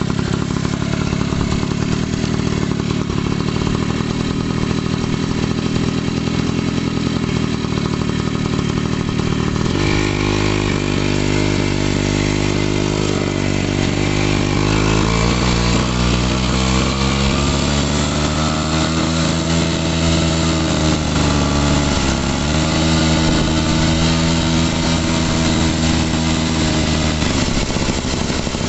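Daelim motorcycle engine running, the throttle opened about ten seconds in and then revved higher and held, with a brief dip in revs a little after halfway before easing off near the end.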